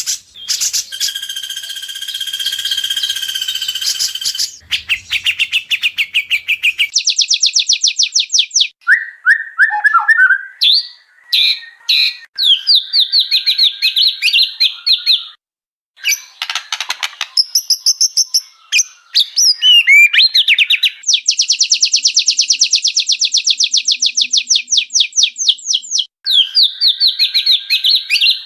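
White-rumped shama singing a loud, varied song: long runs of rapid repeated notes and trills mixed with short whistles and chattering phrases, with a brief break about halfway through.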